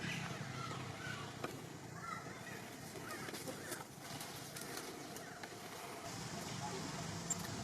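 Faint, short animal calls scattered over a steady background hiss, with a few light clicks.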